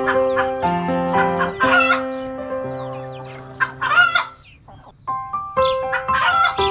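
Chickens calling, three short loud calls over background music that plays in steady sustained notes.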